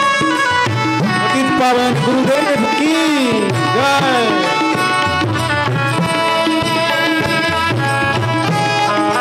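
Devotional bhajan music, instrumental between sung lines: a tabla-style hand drum over sustained melody notes. Between about one and a half and four and a half seconds in, several low drum strokes bend up and down in pitch.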